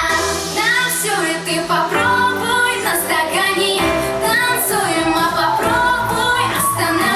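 A song is playing: a high sung vocal melody over a steady bass line.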